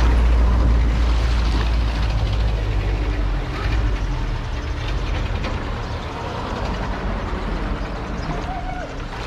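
A vehicle engine running with a low, steady rumble, which eases a little after about three and a half seconds.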